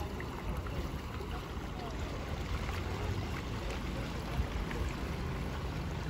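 Steady low outdoor rumble, like wind and a distant motor, with a few faint short chirps above it.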